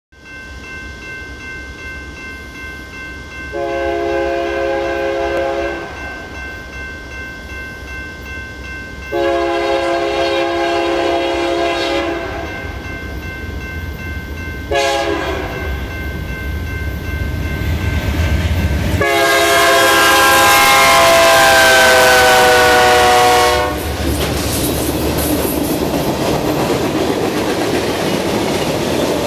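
Diesel freight locomotive's multi-chime air horn sounding two long blasts, a short one and a final long one, the long-long-short-long grade-crossing signal, over the low rumble of the approaching engine. The last blast drops in pitch as the locomotive passes. Then the freight cars roll by with a steady clatter of wheels on rail.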